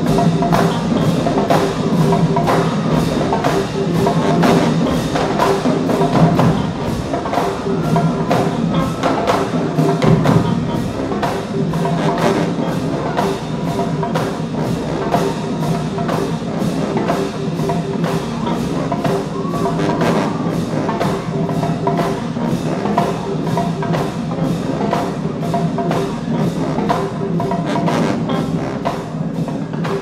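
Percussion-driven music with a steady, even beat and sharp wood-block-like clicks over a sustained low bass line, while the horns are not playing.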